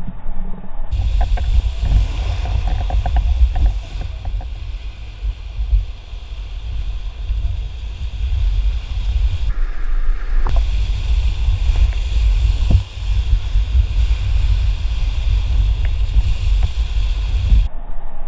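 Whitewater rushing and splashing around an inflatable raft running a rapid, with a heavy, deep rumble of wind and spray buffeting the microphone.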